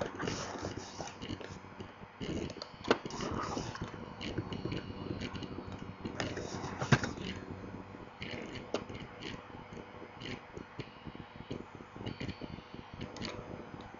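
Typing on a computer keyboard: a run of quick key clicks, with two sharper clicks about three and seven seconds in.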